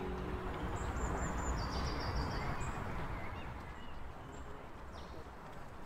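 Outdoor woodland ambience: a steady background hiss with a few short, high bird calls in the first half.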